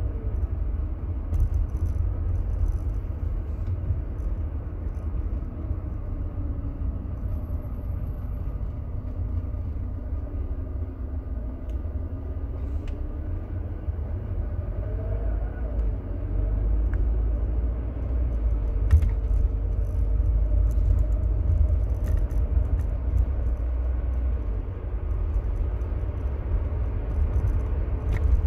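Mercedes-Benz W124 220CE coupe's 2.2-litre four-cylinder petrol engine and road noise while driving: a steady low rumble with the engine note rising and falling gently. A few faint clicks come about two-thirds of the way through.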